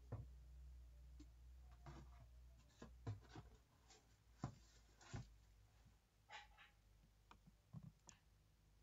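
Near silence: a few faint computer mouse clicks and small knocks, spread unevenly, over a low hum that fades after about two seconds.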